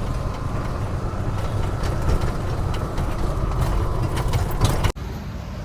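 Motor vehicle running with a steady heavy rumble and road noise, cut off abruptly about five seconds in, after which a quieter traffic background carries on.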